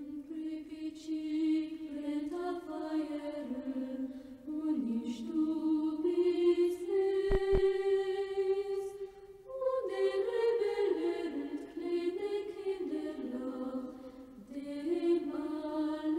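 A solo voice chanting a slow melody in long held notes that step from pitch to pitch, in phrases of a few seconds with short breaks between them.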